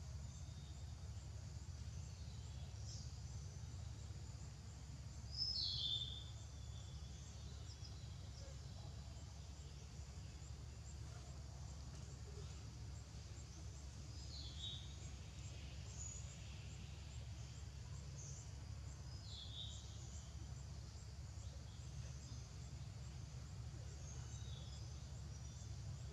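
Outdoor ambience: a steady low rumble with a few short, high, falling chirping calls every few seconds, the loudest about five seconds in.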